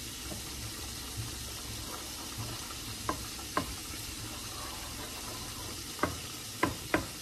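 Wooden spoon stirring a thick cheese sauce in a nonstick pot, with a few sharp knocks of the spoon against the pot starting about three seconds in, over a steady frying sizzle.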